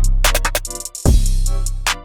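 Background music: an electronic beat with two long, deep bass hits about a second apart, a cymbal crash and short hi-hat ticks.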